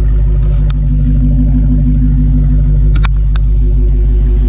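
2020 Dodge Charger Daytona Hellcat's supercharged 6.2-litre HEMI V8 idling steadily and loud, heard up close. A few sharp clicks, once about a second in and a quick cluster about three seconds in.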